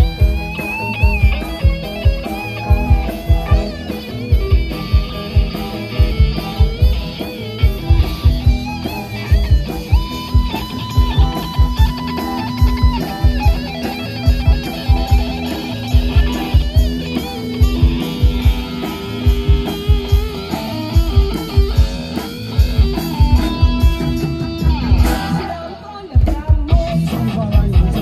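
Band music: a guitar-led melody over a steady, heavy drum and bass beat. Near the end the beat briefly drops out, then comes back.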